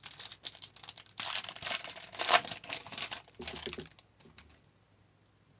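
Trading-card pack wrapper crinkling and tearing as it is opened, with small clicks of handling, going quiet about four seconds in.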